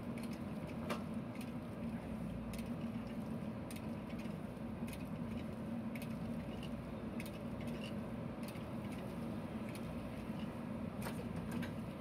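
JCB 3DX backhoe loader's diesel engine running at a steady drone while the backhoe arm digs soil and swings the bucket, with scattered light clicks and knocks throughout.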